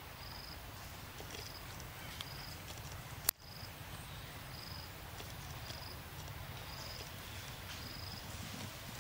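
Outdoor forest ambience: a short, high chirp repeating about once a second over a low, even rumble, with one sharp click about a third of the way in.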